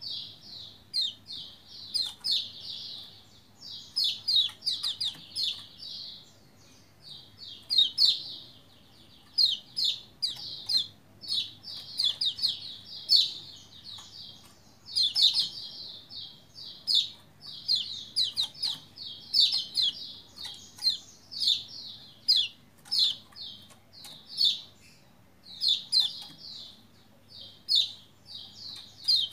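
Lombok white-eye (pleci) singing in full voice: rapid runs of high chirps in short bursts, one after another with only brief gaps.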